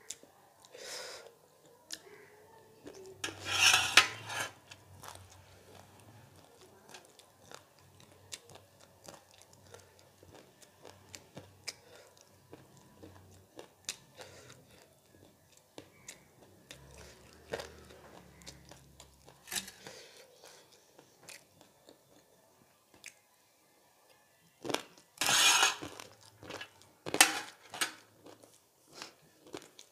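Close-up eating sounds: a steel spoon clinks and scrapes against a tray while crunchy chatpate, a spicy puffed-rice snack, is eaten. Louder metal clatters come about four seconds in and again near the end, when the spoon is set down on the tray.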